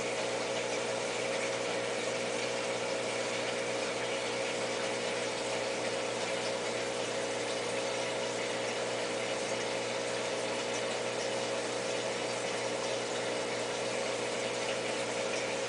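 Aquarium pump and water circulation running steadily: an even hum under a constant hiss.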